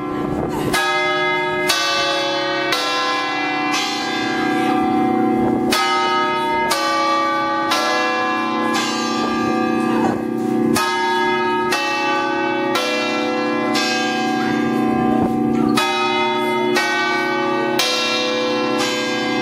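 The seven bronze bells of the Leaning Tower of Pisa's belfry ringing, heard close up from the top of the tower. A new stroke about once a second, each ringing on so the bells blend into a continuous deep hum.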